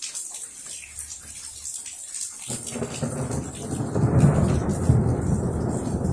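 Rain falling steadily, then about two and a half seconds in a thunder rumble breaks in suddenly. It swells to its loudest a second or two later and rolls on without stopping.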